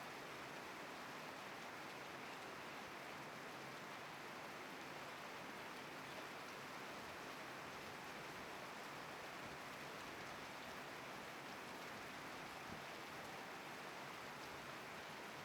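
Steady rushing noise of heavy rain during an airliner's takeoff, an even hiss with no distinct events.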